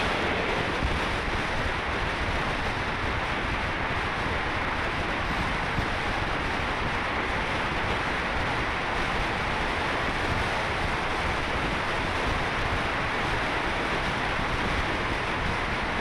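Steady rush of wind and road noise from a camera mounted on the outside of a car driving at speed through a road tunnel.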